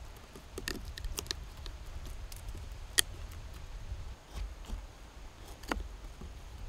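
Knife blade cutting notches into a split piece of wood: scattered small clicks as the blade bites the grain, with one sharp crack about three seconds in.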